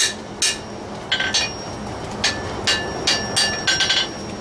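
Blacksmith's hand hammer striking a red-hot steel bar on the anvil, touching up a right-angle bend: about a dozen blows, irregularly spaced with some in quick runs, the anvil ringing between strikes.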